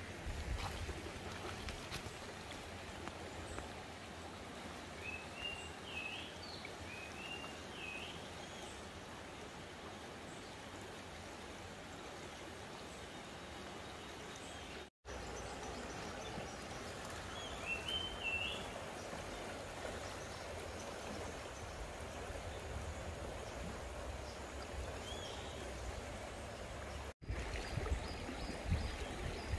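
Shallow river running over stones, a steady rush of water, with a bird calling in a few short chirping notes now and then.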